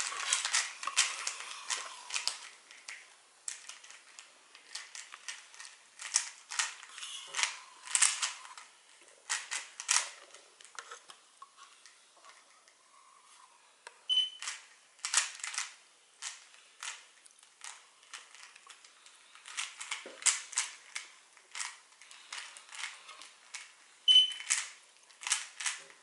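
Plastic Hot Wheel puzzle cube clicking and clacking in quick irregular clusters as its layers are turned by hand while it is being scrambled.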